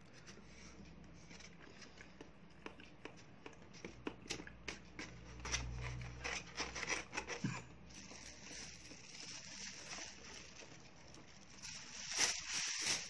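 Small clicks and scrapes of a plastic fork and disposable food containers being handled on a table, then a thin plastic bag rustling from about eight seconds in, loudest near the end.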